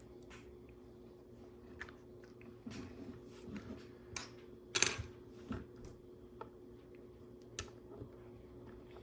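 LEGO bricks being handled and pressed together: scattered small plastic clicks and rattles, the loudest a sharp click about five seconds in, over a faint steady hum.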